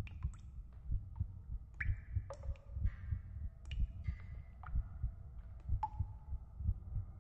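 Low, heartbeat-like throbbing pulses, several a second, with scattered sharp clicks and a few short ringing tones above them.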